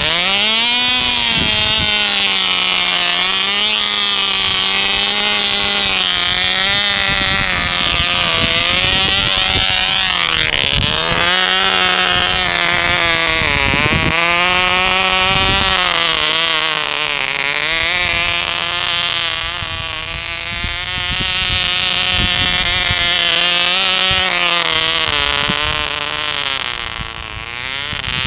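Tiny Cox Pee Wee .020 two-stroke glow engine of a nitro RC model car running at high revs, a loud, high-pitched buzz. Its pitch dips and rises again several times as the car drives.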